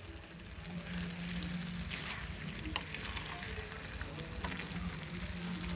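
Egg and chopped vegetables sizzling in a frying pan over a high gas flame, with a spatula stirring and scraping through them and a few light taps. A low steady hum runs underneath.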